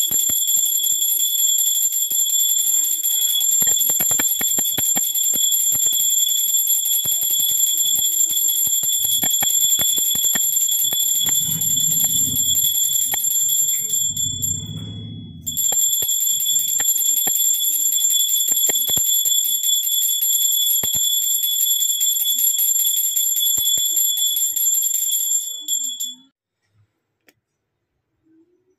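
Brass puja hand bell rung continuously with rapid clapper strikes, a steady high ringing. It breaks off for about a second and a half near the middle, then rings on and stops shortly before the end.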